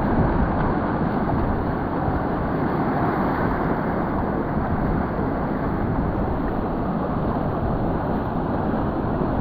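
Wind buffeting the microphone over waves breaking and washing up a beach: a steady, loud rumble without breaks.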